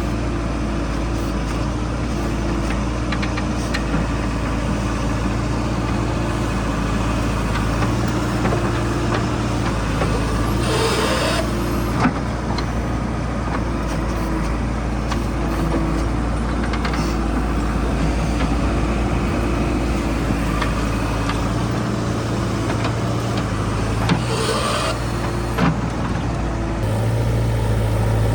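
Diesel engine of a JCB 3DX backhoe loader running under varying load while it works, with a short hiss twice and a few sharp knocks.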